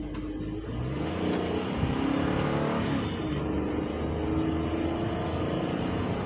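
Ford Transit van's gasoline V6 engine pulling under hard acceleration, its pitch rising over the first couple of seconds and then holding steady.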